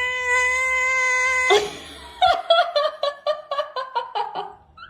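A cat holds one long, steady meow that cuts off suddenly. After a short pause comes a rapid run of short high-pitched vocal sounds, about five a second, stepping down in pitch.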